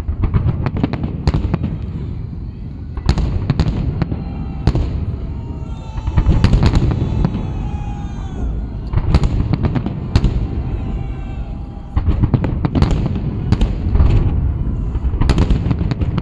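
Large fireworks display: aerial shells bursting in a rapid, irregular series of booms, about one or two a second, over a continuous low rumble and crackle. The bursts come thickest around the middle and again near the end.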